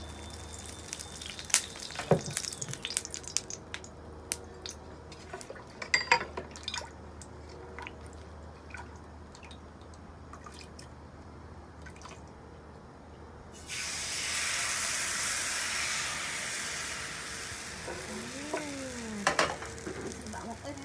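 Whisk and ladle clinking against a metal pot as bánh xèo batter is stirred, then about fourteen seconds in a sudden loud sizzle as the batter is poured into hot oil in a frying pan, holding steady for several seconds.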